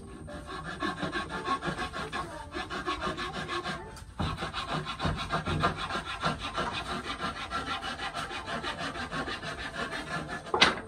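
Quick, steady back-and-forth scraping strokes on wood, like a hand tool working a plank, with a brief pause about four seconds in and a sharp knock near the end.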